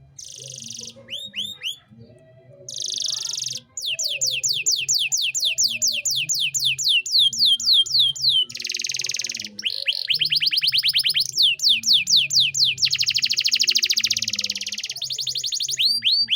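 Male domestic canary singing: rapid rolls of repeated down-sweeping whistled notes, alternating with harsh buzzing trills, changing phrase every second or two.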